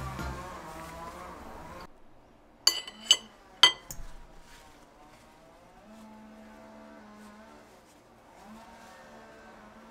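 Knife and fork set down on a stoneware plate: three sharp metallic clinks with a brief ringing, about three seconds in. A continuous background sound cuts off just before them, and a faint low hum follows.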